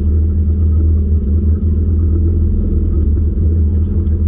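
Boat's outboard motor idling: a steady, loud low rumble with a constant hum.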